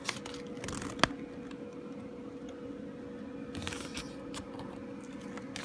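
Quiet handling of small plastic toys and packaging: one sharp click about a second in and a brief rustle a little past the middle, over a faint steady hum.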